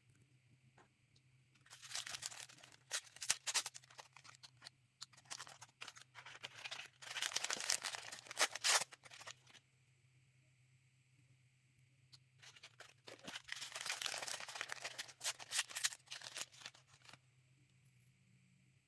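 Plastic packaging being torn open and crinkled by hand in three bursts of rustling and crackling, with short pauses between.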